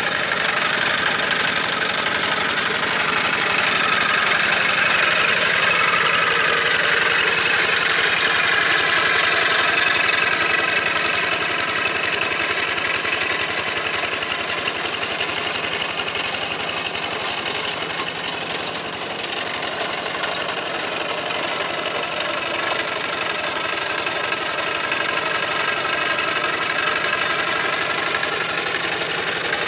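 Old Kubota walking (hand) tractor's single-cylinder diesel engine running steadily under load, pulling cage wheels through the mud of a flooded rice paddy. Its steady beat swells a little in the first third and dips briefly about two-thirds through.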